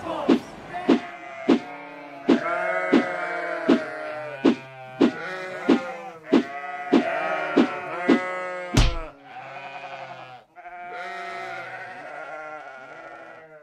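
A flock of sheep bleating, many wavering calls overlapping. Sharp clicks come about one or two a second over the first nine seconds and end in one heavy thud, after which the bleating goes on more quietly.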